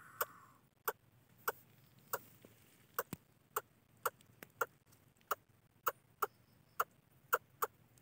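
Fallen nestling bird giving short, sharp clicking calls, roughly two a second at an uneven pace.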